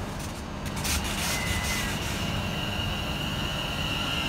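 Electric multiple-unit train pulling out of the platform: a low rumble with a few sharp clicks about a second in. A steady high whine sets in about two seconds in and grows stronger.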